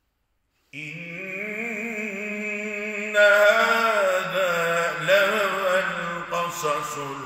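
A man chanting a Quranic recitation in Arabic with long, ornamented melodic lines, close on a lapel microphone. The voice comes in under a second in and grows louder about three seconds in.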